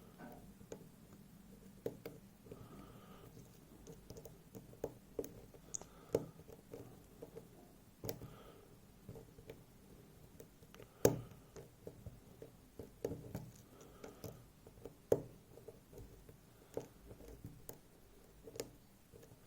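Hook pick working the pin stacks of a FAB Variant lock: irregular small clicks and taps as the pins are lifted, with one sharper click about eleven seconds in.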